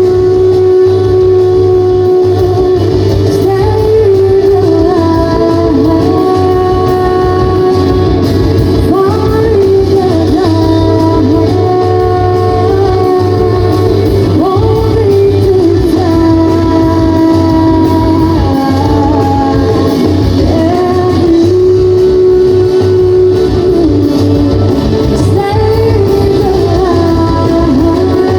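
Live band performing a song: a singer's melody over guitar, bass and drums, loud and steady throughout.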